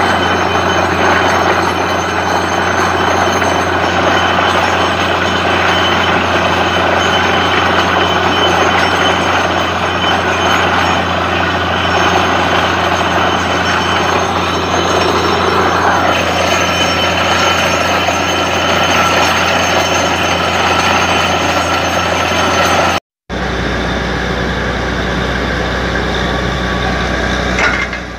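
Truck-mounted borewell drilling rig running loud and steady, a constant dense machine noise over a low engine hum. About 23 s in the sound breaks off for a moment and then continues as a steadier, slightly quieter hum.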